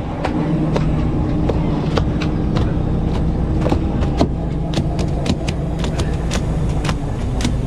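Fishing boat's engine and deck machinery running steadily with a low hum, over frequent sharp clicks and knocks of gear and fish handling on the deck.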